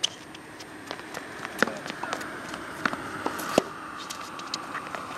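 Tennis ball struck by rackets and bouncing on a hard court during a rally: a few sharp pops, the loudest about a second and a half in and again at about three and a half seconds.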